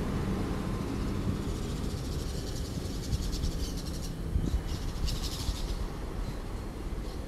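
Expresso Guanabara coach's diesel engine running as it pulls away over cobblestones, a low rumble that slowly fades. A high, fast-pulsing animal call sounds twice in the middle.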